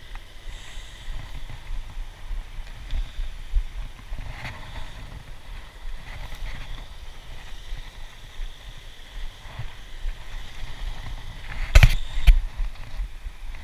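Steady low rumble with faint rustling, and two sharp knocks about half a second apart near the end: handling noise on a chest-mounted camera as the wearer moves about.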